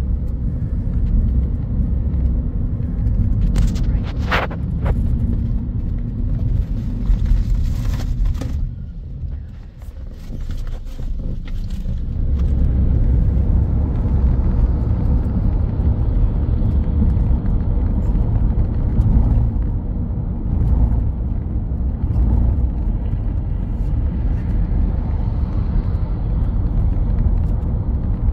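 Steady low rumble of a moving car, its road and engine noise heard from inside the cabin; it eases off briefly about ten seconds in, then returns at full level.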